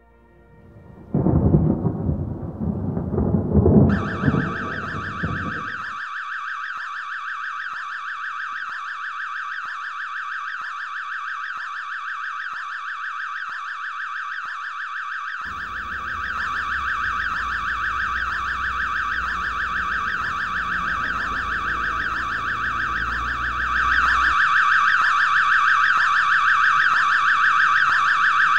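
A loud low rumble for about five seconds, then a steady, shrill electronic alarm-like tone that holds and grows louder near the end, with a low rumble under it again from about halfway.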